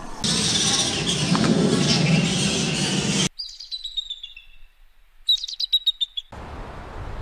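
A loud, steady rushing noise cuts off suddenly about three seconds in. Then a bald eagle calls: high, thin whistled notes falling in pitch, and about a second later a fast run of chittering notes. A windy rushing hiss comes in near the end.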